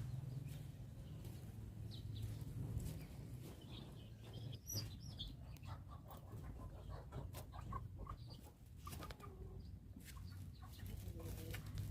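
Chickens clucking faintly, with scattered small clicks over a low steady hum.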